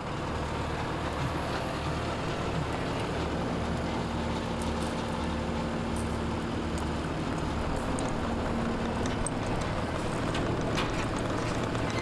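Case TR310 compact track loader's diesel engine running steadily as the machine travels with a load on its forks, a low pulsing hum underneath. A few faint clicks come near the end.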